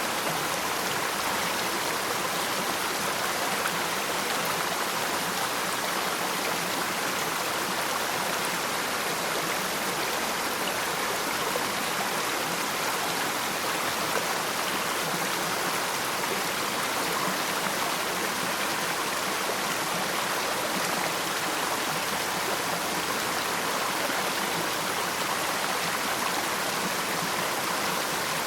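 Waterfall water rushing and splashing in a steady, even wash of sound.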